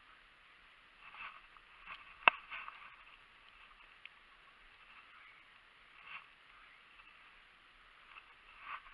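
Muffled rustling and handling noises, with one sharp click a little over two seconds in and further brief rustles near the middle and near the end.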